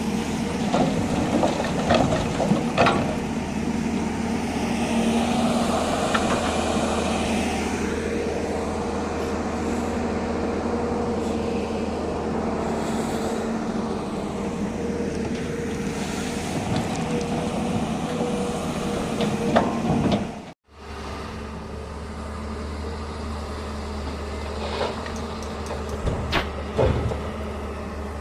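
Heavy diesel engine of a working excavator running steadily, with occasional sharp clanks. About two-thirds of the way through the sound cuts off abruptly and picks up again as a lower, steadier engine hum with a few more knocks.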